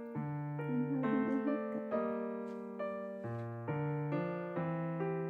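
Background piano music: a steady run of single struck notes and chords, about two a second.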